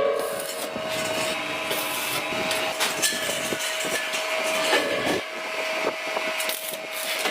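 Metalworking shop noise: a steady machine hum with scattered sharp knocks and scraping.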